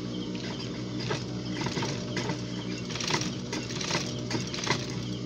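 Industrial sewing machine running while an invisible zipper is sewn on: a steady motor hum, with a series of short, irregular bursts of stitching from about a second in.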